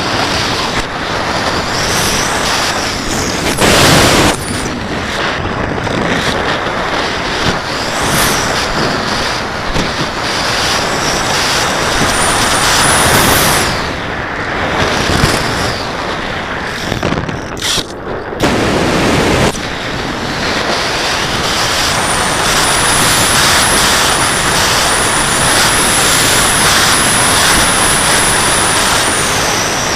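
Wind rushing over the onboard FPV camera's microphone as a Radian RC glider slope-soars. The rush swells and fades in gusts, and a thin high whine comes in twice, briefly a little before halfway and for several seconds in the second half.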